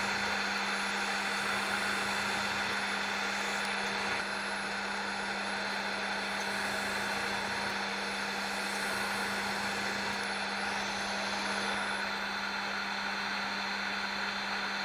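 Wood lathe running steadily: a constant motor hum with an even hiss over it.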